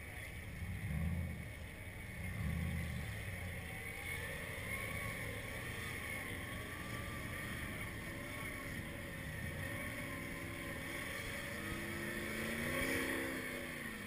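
Off-road 4x4's engine running and revving as it climbs a steep dirt hill, its note rising to its loudest near the end. Wind buffets the microphone about a second in and again at about two and a half seconds.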